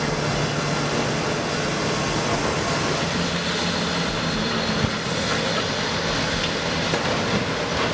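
Mechanical log debarker running, its steel blades tearing bark from a log: a loud, steady machinery din with a low hum under it.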